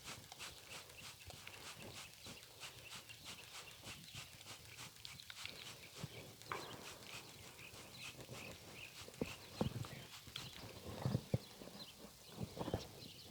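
A horse's hooves stepping and stamping, with a few heavier thuds in the second half.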